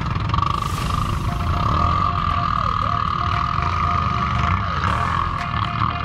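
An ATV engine running steadily under way with a constant whine over a heavy low rumble of engine and ground noise. A faint tone repeats in a steady pattern over it.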